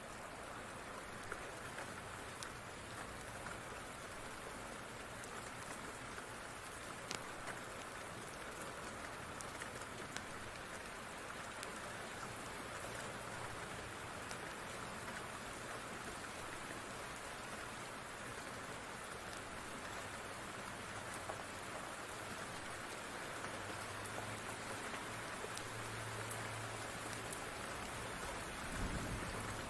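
Steady rainfall, an even hiss of rain with scattered sharp ticks, and a brief low thump near the end.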